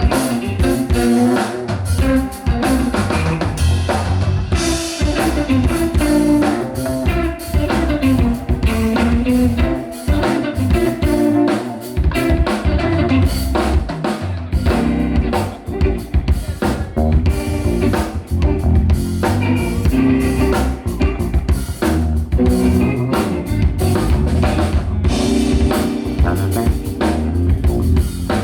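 A band playing: a drum kit with kick and snare strokes over guitar and low bass notes.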